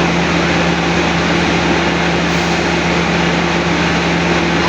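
Diesel engine of a CC 206 diesel-electric locomotive running steadily, a constant low hum with a steady noise over it.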